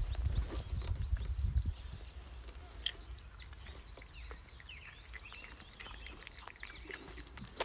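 Wind buffets the microphone with a low rumble for the first couple of seconds. After that come scattered faint, high chirps and one sharp click.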